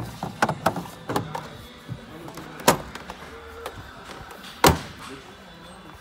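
Display washing machines being handled by hand. A quick run of clicks and knocks is followed by two sharp bangs about two seconds apart.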